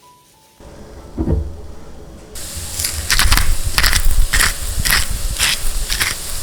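Rhythmic crunching or scraping strokes, about two a second, over a steady hiss, with a single thump about a second in: hands at work on food in a kitchen.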